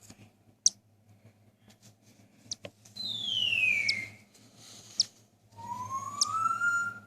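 Two long whistled notes, the first sliding down in pitch and the second slowly rising. A few very short, sharp high chirps fall in between, about a second in, midway and near the end.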